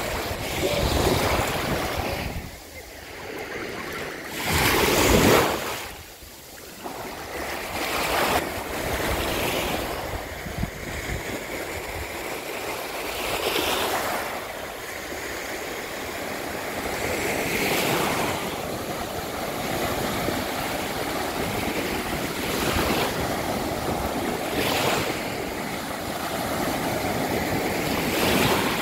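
Small sea waves breaking and washing up a sandy shore, swelling in surges every few seconds, the loudest about five seconds in.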